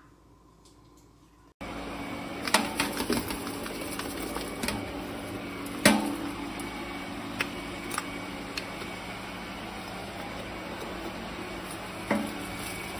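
An electric coffee appliance running, starting abruptly about a second and a half in: a steady hum with scattered clicks and knocks, a louder knock near the middle.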